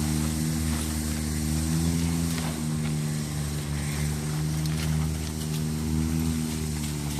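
An engine running steadily at an even pitch, rising briefly about two seconds in.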